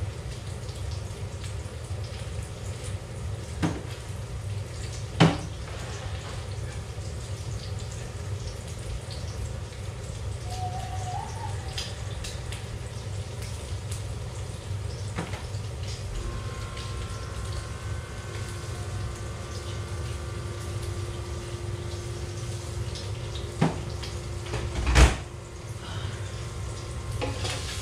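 Steady low kitchen hum with a few sharp knocks and clatters of bottles and containers being handled at a cabinet, the loudest near the end.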